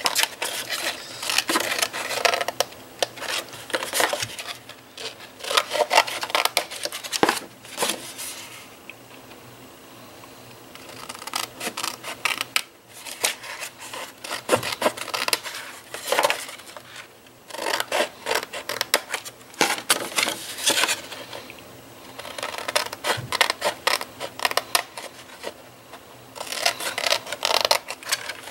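Scissors snipping through cardstock in runs of short cuts, with the sheet rustling as it is handled and turned. There are a few brief pauses between runs.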